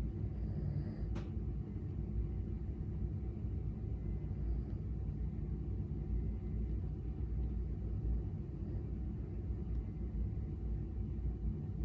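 A sleeping person snoring: a low, steady rumble with a faint breathy hiss every few seconds.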